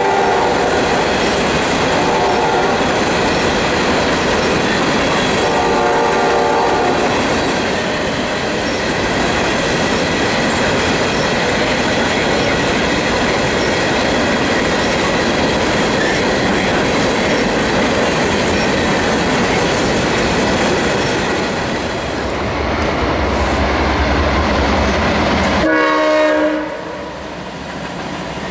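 Coal hopper cars of a CSX freight train rolling past at speed: a steady rumble and clatter of wheels on rail. A train horn sounds in short blasts in the first six seconds, and louder near the end, just as the rolling noise cuts off.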